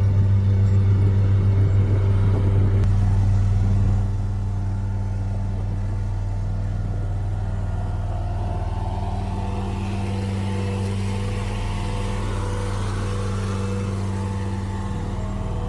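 Bulldozer's diesel engine running steadily with a deep hum, dropping in level about four seconds in and then holding steady.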